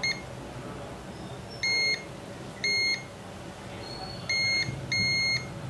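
Digital multimeter in diode/continuity mode beeping four short, steady beeps at one pitch as its probe touches capacitors on the phone's logic board: the beep signals that the capacitor is shorted.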